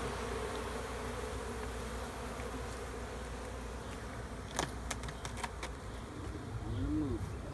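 Honeybees buzzing in a steady hum around an opened hive, with one bee passing close near the end, its pitch rising and falling. A few light clicks and knocks about halfway through as the nuc box is handled.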